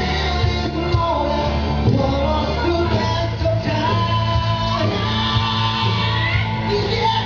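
A man singing a song live into a microphone over loud amplified backing music, holding long notes.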